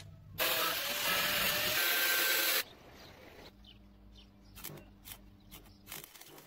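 Electric arc welding on a steel chassis tube: a loud, even hiss for about two seconds that cuts off sharply. Then the welder's steady low hum, with a run of sharp clicks as the electrode is scratched against the steel, and the loud hiss of the arc starting again right at the end.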